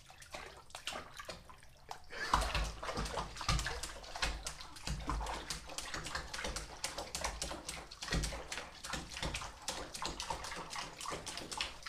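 Apple head chihuahua paddling in a bathtub of water: quick, continuous splashing and sloshing that starts about two seconds in.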